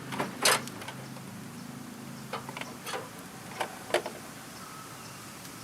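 Several separate sharp plastic clicks and knocks, the loudest about half a second in, from a headlight assembly's wiring harness connector being worked off.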